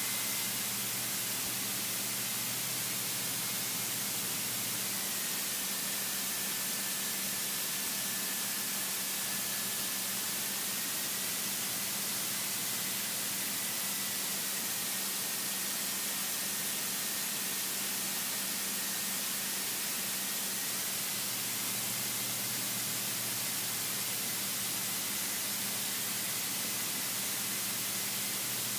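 Steady cabin noise of a light single-engine aircraft in flight, a hiss of engine and airflow with a low steady engine hum underneath and a thin high tone that dips slightly in pitch and comes back.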